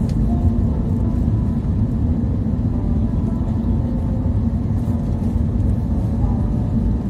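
Steady low rumble of jet engines and rushing air, heard inside an airliner cabin during its descent to land.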